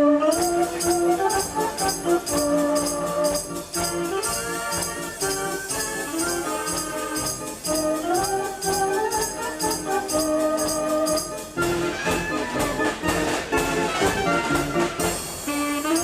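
A 105-key Decap fairground dance organ playing a tune: a melody line over a steady beat from its percussion.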